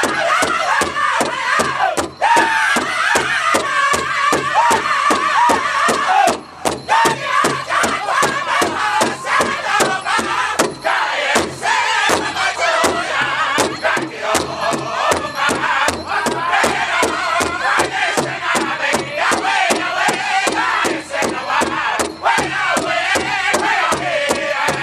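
Powwow drum group singing in northern style: several men singing high, wavering lines together over a large hide-covered drum struck in unison with sticks in a steady, even beat.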